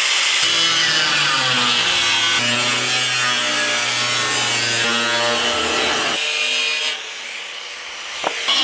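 Angle grinder with a cutting disc slicing through the sheet-steel lid of a drum, a steady grinding whine whose pitch wavers as the disc bites. It goes quieter for a moment about seven seconds in, then cuts at full loudness again near the end.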